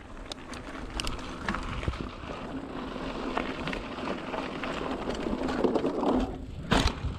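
Mountain bike rolling down a dirt trail: steady tyre noise with the bike's rattles and clicks, and two sharp knocks near the end.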